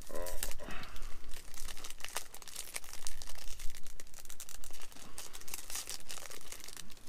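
Food packaging crinkling and rustling as it is handled, with irregular crackles throughout.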